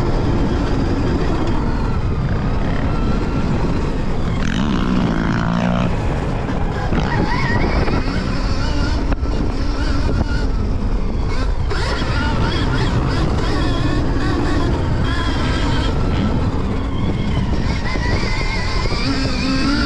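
Stark Varg electric motocross bike's motor whining at speed, its pitch rising and falling with the throttle, over a steady rush of noise.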